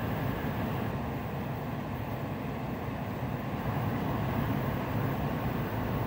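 Shinkansen bullet train running at speed, heard from inside the passenger cabin: a steady low rumble.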